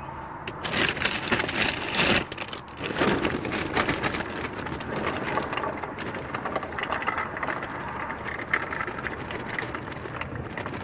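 Hard boilie baits poured from a plastic bag into the hopper of a Ridge Monkey boilie crusher, pattering and rattling like rain against the container while the bag rustles, with louder clattering in the first couple of seconds.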